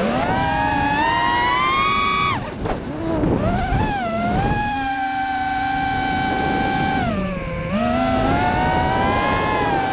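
FPV quadcopter's electric motors whining, the pitch rising and falling with the throttle. The whine drops away sharply about two and a half seconds in, swoops back up, holds steady for a couple of seconds, then dips briefly near the end before climbing again.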